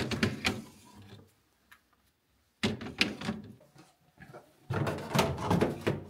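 Food items being put back into a refrigerator: containers knocking and clattering against its shelves and drawers, in three bursts of about a second each.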